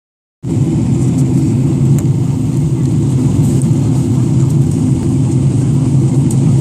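Steady cabin noise of an Emirates Boeing 777-300ER in flight on approach: a loud, even, low rumble of airflow and its GE90 engines, starting abruptly about half a second in.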